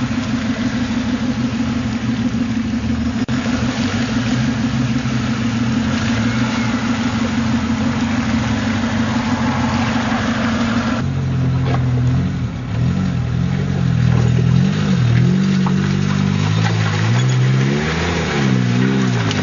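Off-road 4x4 engine running at a steady drone as the vehicle wades through deep water; about halfway through the sound changes abruptly to an engine revving up and down again and again as a lifted 4x4 crawls over rocks.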